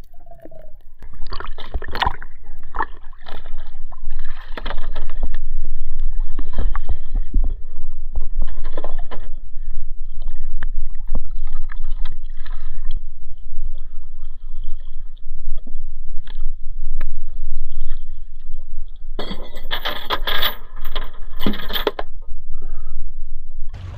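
Water splashing and sloshing at the surface as a freediver pulls himself along a rope to the side of a boat, with scattered knocks and a heavy low rumble of water buffeting the microphone. A denser burst of splashing comes about three-quarters of the way in.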